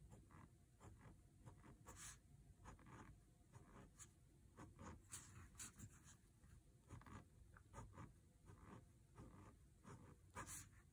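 Fine-tip ink pen scratching across a paper tile in many short, quick strokes at an uneven pace, quiet.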